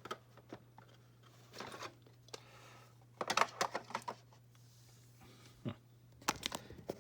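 Small plastic toy pieces being handled and pushed into place in a doll playset: scattered light clicks and taps, bunched together about three seconds in and again near the end.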